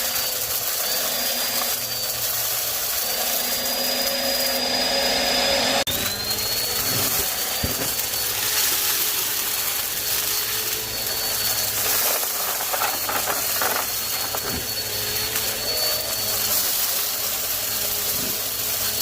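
Vacuum cleaner running steadily, its motor whine wavering slightly in pitch, with a sudden shift about six seconds in and a few brief rattles of picked-up debris later on.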